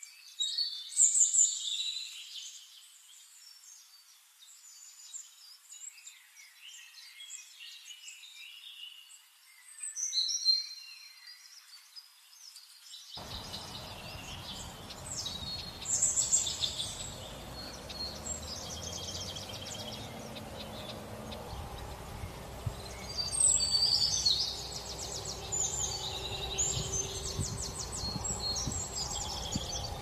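Several birds calling, with high chirps, whistles and quick trills coming in bursts. About thirteen seconds in, a steady low background hiss joins.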